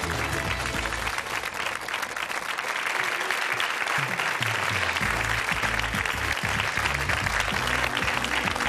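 Studio audience applauding over theme music with a bass line.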